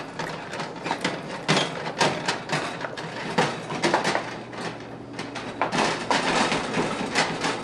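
Spoon stirring ground-turkey tomato sauce in a stainless steel stockpot, with irregular knocks and scrapes against the pot.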